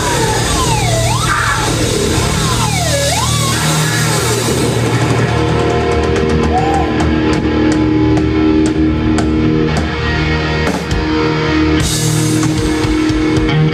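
Live heavy metal band with distorted electric guitars, loud and steady. In the first few seconds the guitar pitch twice dives and swoops back up, then held chords ring out under regular sharp drum hits.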